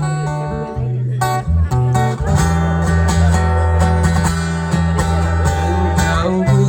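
Background song with strummed acoustic guitar and bass, playing an instrumental passage between sung lines.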